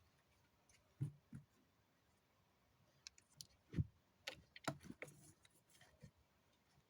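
Scattered light clicks and knocks of small objects being handled: a pair about a second in, then a quick cluster from about three to six seconds in.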